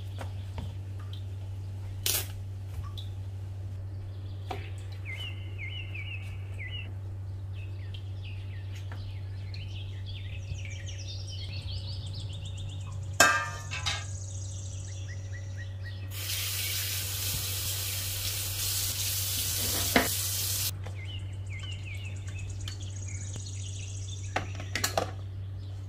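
Kitchen working sounds over a steady low hum: a few sharp knocks, and a hiss of about four seconds in the middle that starts and stops abruptly, like a running tap.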